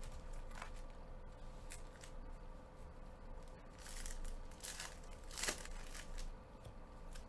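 A foil trading-card pack wrapper being torn open and crinkled by hand. A few faint handling clicks come first, then about four seconds in a run of sharp crackling tears, the loudest a little after the middle.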